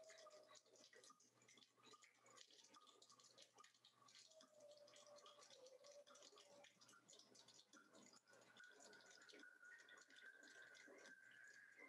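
Very faint soundtrack of a video artwork built from voice and body percussion: a dense scatter of small clicks and taps under long held tones, which step up to a higher pitch in the second half.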